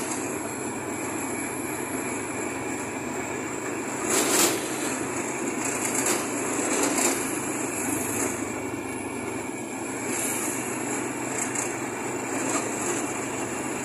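Steady wind and road rumble from riding along on a moving vehicle, with a louder gust about four seconds in. A motorcycle passes close just as it begins.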